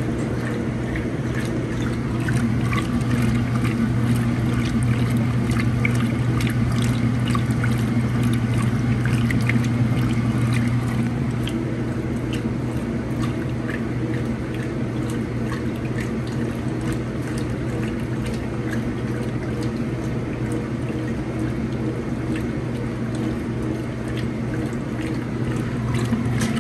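Top-load washing machine agitating a large load of towels in water: a steady motor hum under continuous churning, sloshing water. The machine is broken in, with only a little tub indexing left.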